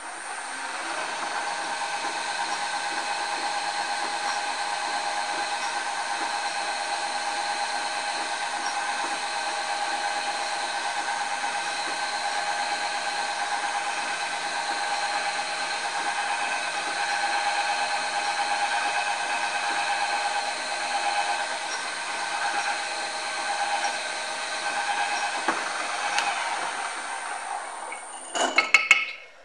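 Drill press motor spinning up and running steadily while a small twist drill bores into metal, throwing off swarf; it shuts off near the end, followed by a brief clatter.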